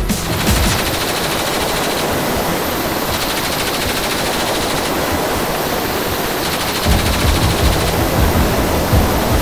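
Door-mounted, belt-fed machine gun on a Seahawk helicopter firing rapid, sustained automatic fire. A low pulsing beat joins about seven seconds in.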